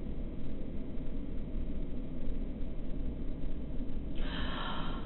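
Steady low rumble of room noise in a small, quiet room. About four seconds in there is a short burst of hiss, likely a person shifting in her seat.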